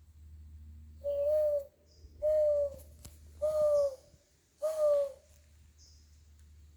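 Four hollow hooting calls, evenly spaced a little over a second apart, each a steady note held about half a second, beginning about a second in.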